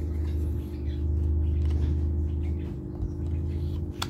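Kydex knife sheath being handled by gloved hands, giving small plastic clicks and one sharp click near the end, over a steady low rumble.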